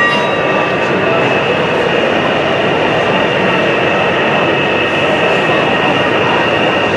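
HO-scale model diesel locomotives running on a layout: a steady rail rumble with a constant high whine that holds throughout, over a hall's background chatter.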